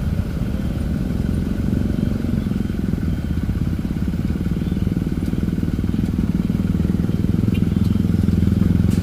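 Steady low engine rumble from road traffic, with motorcycles riding past; it grows a little louder near the end.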